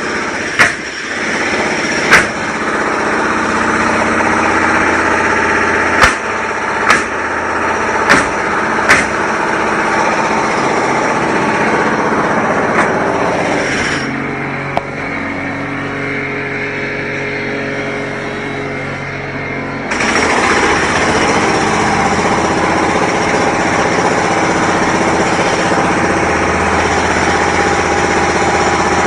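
Construction-site machinery running, with a few sharp bangs of impacts in the first ten seconds or so. About halfway through the noise drops for several seconds to a lower, steady engine hum, then the louder machine noise returns.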